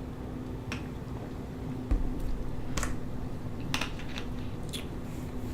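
Several light clicks and taps, irregularly spaced, with a dull thump about two seconds in, over a faint steady hum.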